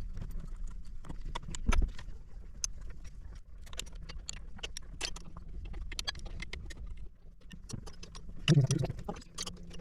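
Scattered small clicks and knocks of hand tools and metal fittings being handled, with one heavier thump about two seconds in. A brief low voice comes in near the end.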